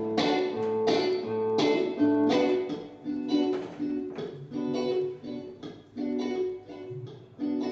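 Acoustic guitar strummed in an instrumental break of a song, with no singing. Regular chord strokes thin out to lighter, sparser ones about halfway through.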